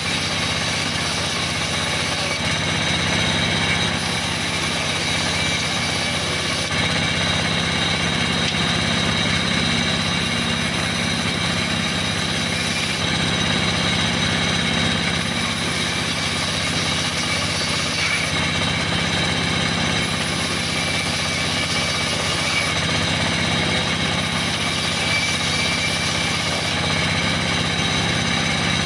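Sawmill's vertical saw running steadily while a plank is fed through it and ripped lengthwise: an even mechanical drone with a high whine over it.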